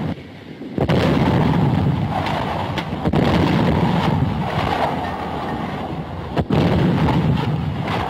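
Heavy artillery barrage: big guns firing and shells bursting in a continuous rumble of blasts, with a short lull at the start broken by a sudden blast about a second in.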